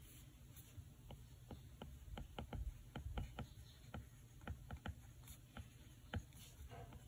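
Light, irregular tapping on an iPad during note-taking, a few taps a second, over a low steady hum.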